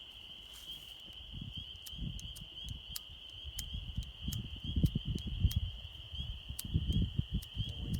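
Steady chirring of crickets, with irregular low rumbling that grows stronger around the middle and near the end. No shot is heard.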